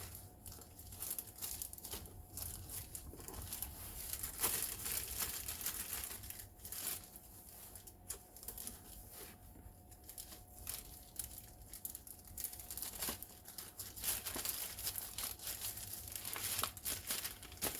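Plastic packaging crinkling and rustling in irregular spurts as it is handled, with occasional sharper crackles.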